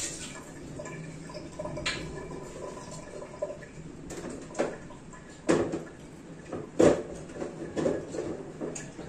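Rain in a garden: a steady hiss with a handful of sharp drip hits of heavy drops landing on hard surfaces, the loudest about seven seconds in.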